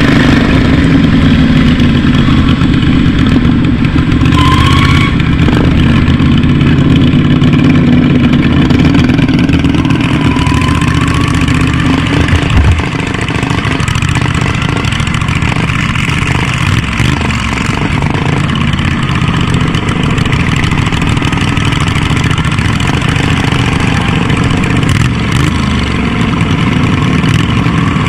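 Racing lawn mower engines running hard during a dirt-track race, heard up close from the driver's seat. The engine note is loud and steady, easing slightly about halfway through.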